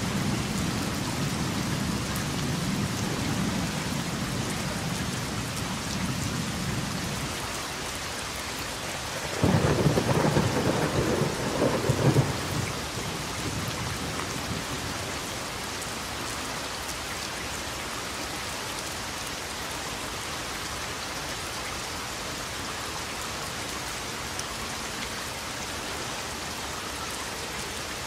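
Steady rain with thunder. A low rumble of thunder dies away over the first several seconds, then a loud clap about nine seconds in rolls for roughly three seconds, and after it only the rain goes on.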